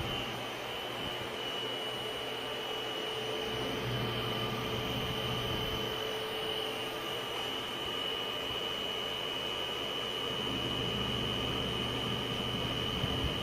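Steady machine noise: a constant high-pitched whine over an even hiss and a low hum, with no change in speed.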